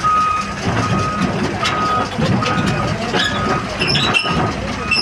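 Backup alarm on heavy machinery beeping steadily, a bit more than once a second, over a diesel engine's low rumble.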